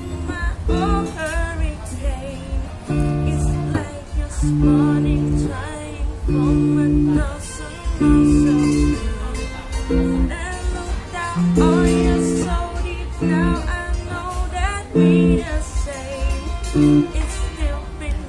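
A young woman singing while playing chords on an amplified Stratocaster-style electric guitar, over a steady low beat.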